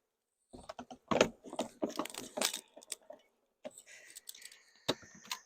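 Wooden beehive frames knocking and clattering against each other and the hive box as they are handled, a quick run of sharp clicks and knocks. A steadier high-pitched hiss follows near the end.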